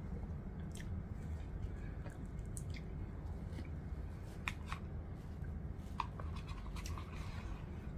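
Faint, scattered clicks and scrapes of a plastic spoon against a takeaway soup bowl, with soft eating sounds, over a steady low hum.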